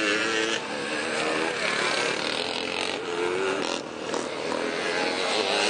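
Several vintage motocross motorcycles racing round a dirt track, their engines buzzing and revving up and down in pitch as they accelerate and shift.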